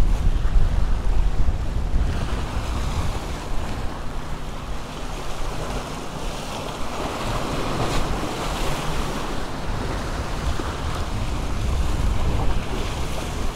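Waves surging and washing against the jetty's rocks, the wash swelling up around the middle, with wind buffeting the microphone in low rumbles.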